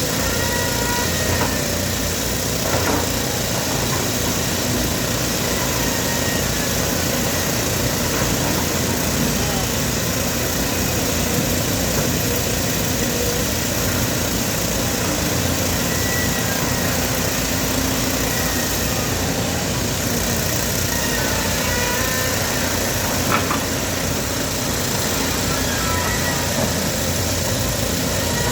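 Diesel engine of heavy machinery running steadily, with one sharp knock near the end.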